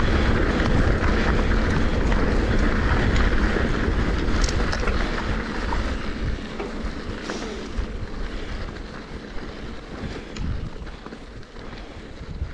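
Wind rushing over a helmet-mounted camera's microphone and mountain bike tyres rolling on a dirt track. It is loud at first and dies away from about five seconds in as the bike slows, with a few sharp rattles from the bike.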